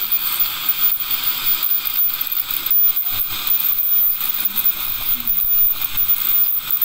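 Ultrasonic dental scaler running against the teeth, a steady high whine over the hiss of its water spray and the saliva ejector's suction, with a faint rapid chatter as the tip breaks calculus off the tooth surfaces.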